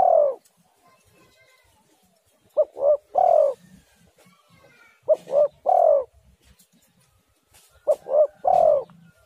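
Spotted dove cooing: three repeated phrases about two and a half seconds apart, each two short coos followed by a longer drawn-out coo, with the end of a fourth phrase just at the start.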